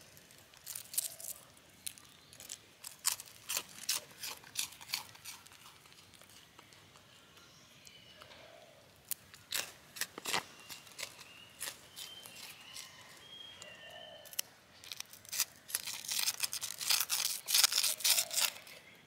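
Long-tailed macaque chewing crunchy fried snack sticks: sharp crisp crunches in quick runs, a cluster in the first few seconds and a louder run near the end.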